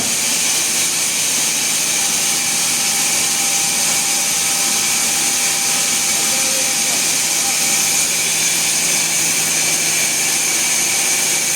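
Sawmill machinery running steadily, a loud even noise without breaks.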